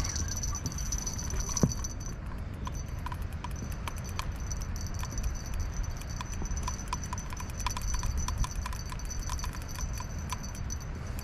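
Many light, irregular clicks and ticks, several a second, over a steady low rumble.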